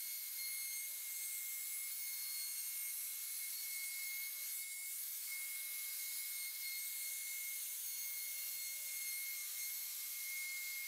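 Bosch plunge router with a 45-degree bearing-guided chamfer bit cutting a small chamfer around the edge of a hole in a pine board: a steady high motor whine over a hiss of cutting.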